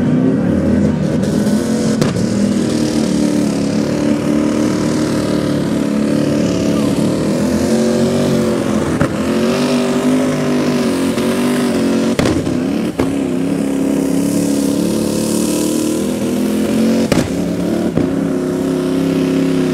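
Modified-class pulling tractor's engine running flat out under load as it drags the weight sled, the pitch wavering up and down, with a few sharp cracks along the way.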